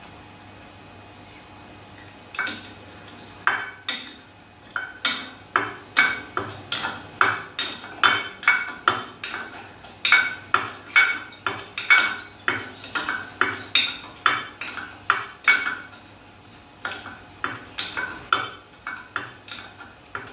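Sharp metallic clicks from hand work on an old metal shaper, repeating about twice a second. They start a couple of seconds in and ease off briefly near the end.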